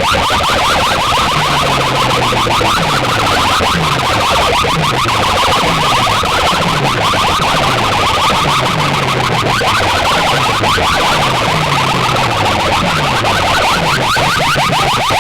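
DJ sound-system speakers blasting a siren-like electronic effect at high volume. Rapid rising chirps run over repeated falling bass sweeps.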